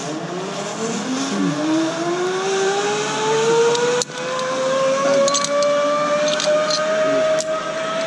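Zip line trolley pulleys running along the steel cable as a rider speeds away, a whine rising steadily in pitch as the trolley picks up speed. A sharp metal click comes about four seconds in, and lighter clinks of carabiners and a trolley being handled follow near the end.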